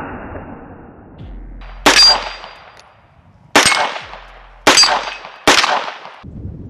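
Four sharp shots from an AR-style rifle: one about two seconds in, then three more over the next two seconds, each with a short ringing tail that fades.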